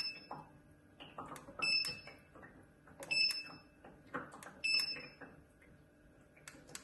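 Short high electronic beeps from a water-vapour fireplace's control unit, one for each press of the remote's colour button, repeating about every second and a half, five times, each with a faint click.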